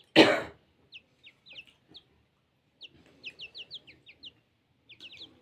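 Chicks peeping: runs of short, high peeps, each falling in pitch, several a second. A brief loud burst of noise comes just after the start.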